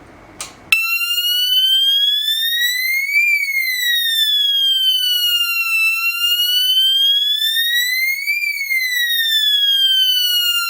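YA90 fire strobe siren, set to the third of its three selectable tones, sounding a slow wail that rises and falls about every five seconds. It starts with a click a little under a second in and cuts off suddenly at the very end.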